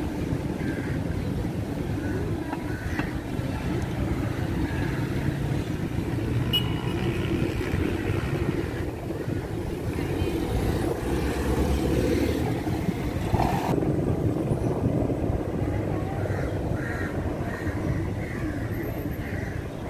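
Outdoor street ambience: a steady low rumble with the chatter of passing people's voices.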